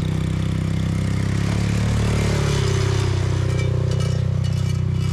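Motor vehicle engine running steadily at a low, even pitch, with light clicking rattles in the second half.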